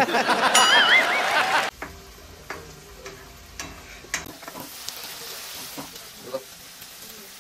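Chopped vegetables and spices frying in oil in a steel kadai, a steady sizzle, while a spatula stirs and scrapes the pan with scattered sharp clicks. Before the frying comes in, about the first second and a half is a loud burst of voice with a wavering whistle-like tone.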